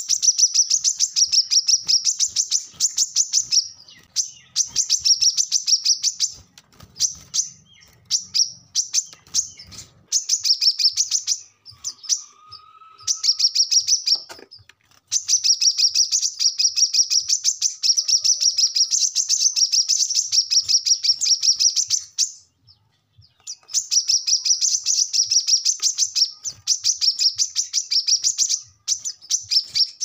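Brown-throated sunbird (kolibri kelapa) singing in fast, chattering strings of high chips. The phrases run a few seconds each, broken by short pauses: the bird is in full, energetic 'gacor' song.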